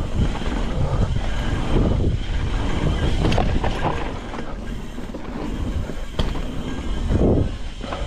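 Cannondale Scalpel mountain bike rolling fast down a dirt singletrack: a continuous rumble of tyres on the trail and wind buffeting the microphone, with a couple of sharp knocks from the bike.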